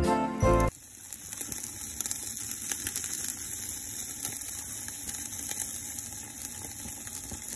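Chicken yakitori skewers, meat and skin, sizzling on a cassette-gas grill: a steady hiss flecked with small crackles, as the chicken nears doneness. Background music cuts off under a second in.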